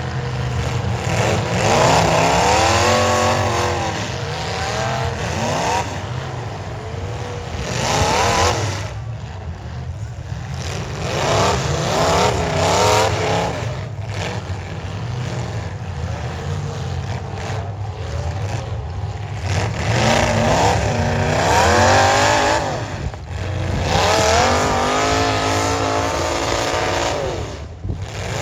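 Demolition derby car engines running loud and revving hard again and again, the pitch climbing and falling in repeated surges over a steady low engine drone.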